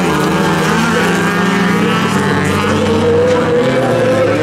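Stock car engines running hard at high revs as several cars race on a gravel track, a steady loud engine note with a few pitches overlapping.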